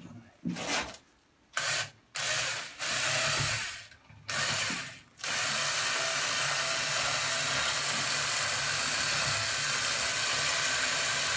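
A power tool run in several short bursts, then held running steadily from about five seconds in.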